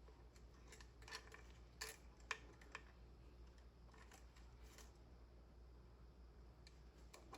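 Near silence: faint room hum with a few soft clicks and taps of objects being handled, most of them in the first three seconds.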